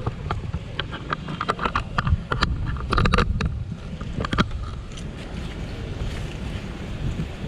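Wind rumbling on the action camera's microphone, with a string of sharp clicks and knocks through the first half, as of the camera being handled.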